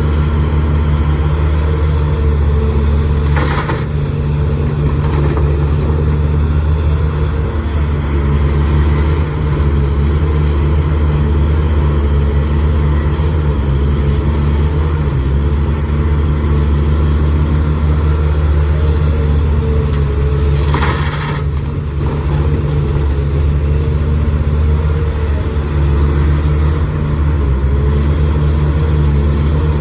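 An excavator's engine running steadily under load, a constant deep drone. Twice, a few seconds in and again about two-thirds through, a short hiss cuts across it.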